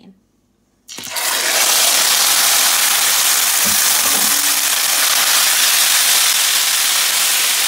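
Seasoned chicken pieces hitting hot caramelized brown sugar and oil in a stainless steel pan. The pan sizzles loudly and steadily from about a second in, as the chicken starts to sear and brown in the caramel.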